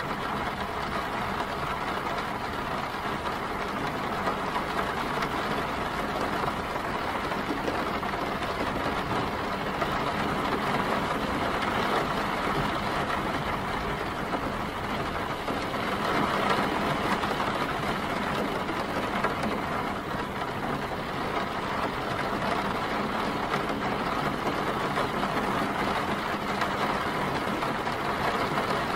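Steady city street noise in the rain: vehicle engines running and idling under an even hiss of rain, swelling slightly about halfway through.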